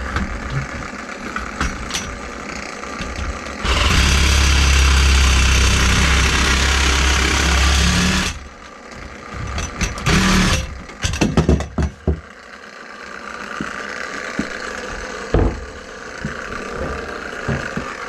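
A cordless power tool's motor runs steadily with a deep hum for about four and a half seconds, then starts again in one shorter run and a few quick bursts.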